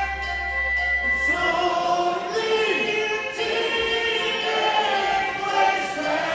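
A male lead singer at a live rock concert sings slow, held notes into a microphone over soft, sustained backing without drums. A low bass note drops out about a second and a half in.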